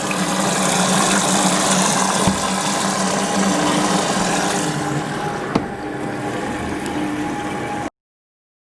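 Bauknecht WA 9350 washing machine running with a steady hum. A hissing rush over the first few seconds and two sharp clicks sit on the hum, and the sound cuts off suddenly near the end.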